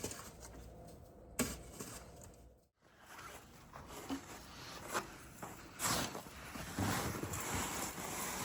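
Snow shovel scraping and scooping through heavy snow in uneven strokes, louder in the second half, after a brief dropout about three seconds in.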